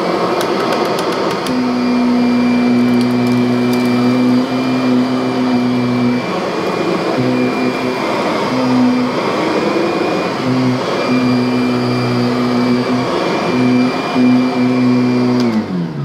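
Kirby upright vacuum's direct-air motor and fan running loud while pushed back and forth over carpet: a steady hum with a high whine, the low tone breaking up at moments as the machine moves, and a few sharp ticks in the first couple of seconds. The loudest vacuum of the lineup, though with a pleasant tone. Switched off at the end, its pitch falling as it spins down.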